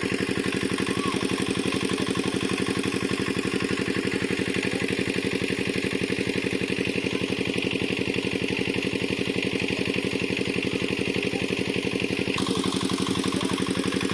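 Engine of a pond-dewatering pump running steadily with an even, rapid beat, the sound shifting slightly about twelve seconds in.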